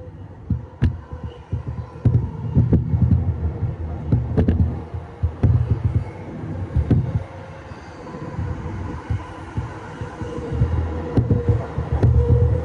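JR East E531 series electric train running at speed, heard from inside a passenger car: a heavy wheel-on-rail rumble that swells and fades, broken by sharp clacks as the wheels cross rail joints and points, over a steady hum from the traction equipment.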